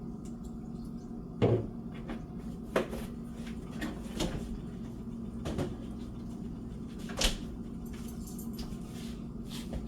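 Kitchen clatter while cooking: about six separate knocks and clunks, loudest about one and a half seconds in and again about seven seconds in, over a steady low hum.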